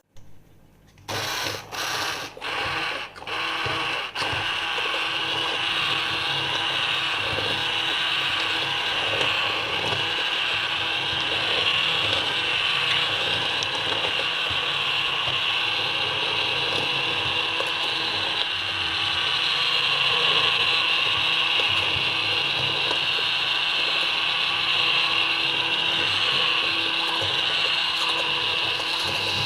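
Electric blender motor: four or five short pulses in the first few seconds, then running steadily.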